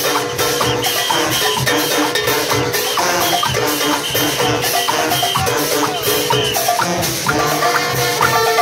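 A brass band playing live: horns and sousaphones sound sustained notes over a steady, driving beat of drums and rattling percussion.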